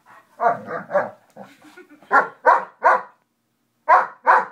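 Dog barking in short sharp barks: three, then three more about two seconds in, then two near the end.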